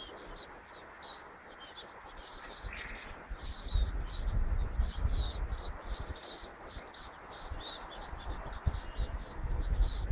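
A flock of sparrows chirping: many quick, high chirps overlapping without a break. Wind gusts buffet the microphone with a low rumble from about four seconds in and again near the end.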